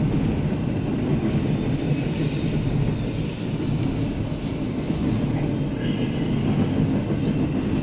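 Double-stack intermodal freight train of TTX well cars rolling past: a steady low rumble and rattle of wheels on rail. A thin, high wheel squeal rises over it for a couple of seconds in the middle.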